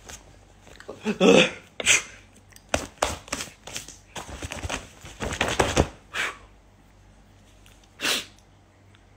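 Close handling noise at a phone's microphone: a run of rustles, taps and clicks over the first six seconds, loudest about a second in, then one more short rustle near the end.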